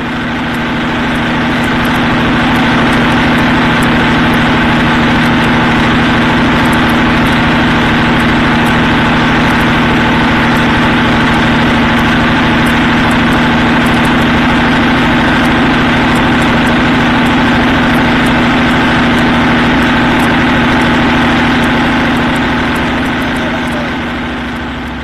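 Scania 113's 11-litre six-cylinder turbo diesel running loud and steady at constant revs, heard close up from beside its exhaust manifolds. It swells in over the first couple of seconds and fades away near the end.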